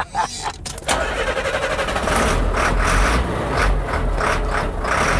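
Hauler truck's engine being started: the starter cranks briefly and the engine catches about a second in, then runs steadily with a deep rumble.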